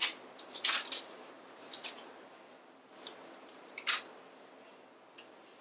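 Several short, hissy rustles and scrapes at uneven intervals, the loudest at the start and about four seconds in: puppets and the draped blanket being handled.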